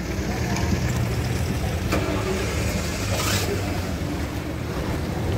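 Off-road tour jeep engine running with a steady low rumble. A short burst of hiss about three seconds in.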